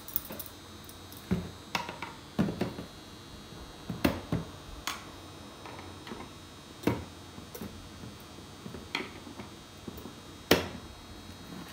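Scattered light clicks and taps from the metal wire beaters of a hand mixer being handled while sweet potato strands are picked off them by hand, with one sharper knock near the end.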